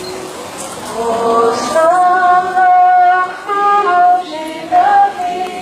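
A woman's voice singing a slow hymn, with long held notes that step from one pitch to the next.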